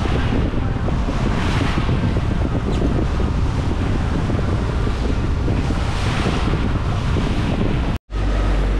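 Strong wind buffeting the microphone over the rush of sea water around a boat, with a low rumble underneath. The rush swells and eases every second or so, then cuts off abruptly near the end.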